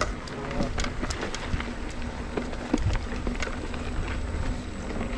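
Mountain bike being ridden over a dirt trail: a steady low rumble of tyres and wind on the microphone, with scattered sharp clicks and rattles from the bike over bumps.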